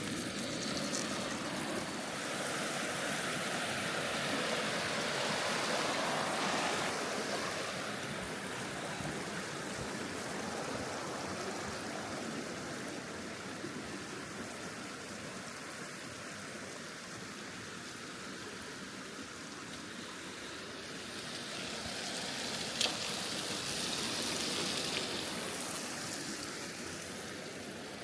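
A river rushing over rocks in a steady wide hiss, swelling louder twice, with one sharp click about three-quarters of the way through.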